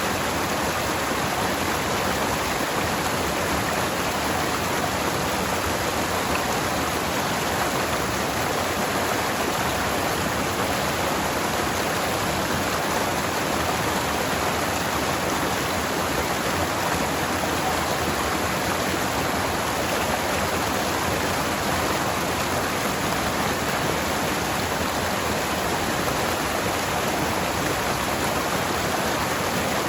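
Forest stream flowing, a steady, even rush of water.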